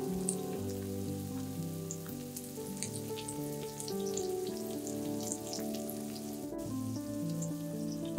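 Soft background music with slowly changing notes, over grated potato and egg frying in oil in a stainless steel pan, with light scattered crackles and sizzles.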